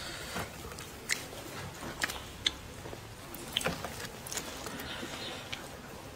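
Close-up eating sounds of a person picking at and chewing chopped-pepper fish head with chopsticks: quiet chewing with a few sharp clicks scattered through.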